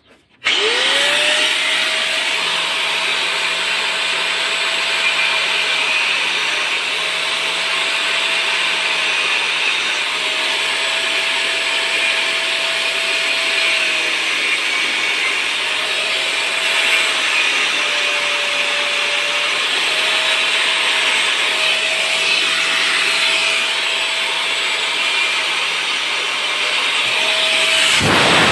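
Handheld angle grinder spinning up about half a second in, then running steadily while its disc cuts through a sheep's horn that has grown into the eye. The motor's hum dips briefly in pitch several times, under a constant hiss from the cutting.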